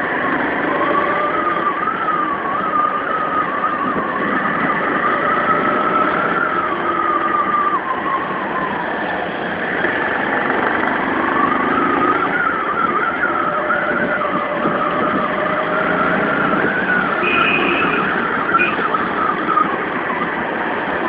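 Motorcycle engine running on the move over steady road noise. Its note wavers up and down with the throttle, drops around eight seconds in and climbs again a couple of seconds later.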